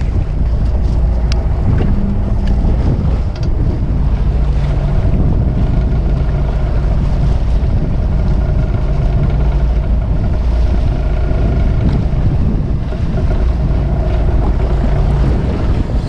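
Wind buffeting the microphone and choppy waves splashing against a fishing boat's hull, over a steady low hum from the boat.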